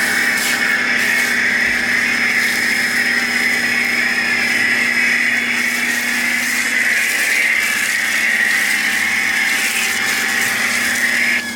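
Pressure washer running steadily: a constant motor hum under the hiss of the spray jet. It cuts off abruptly near the end.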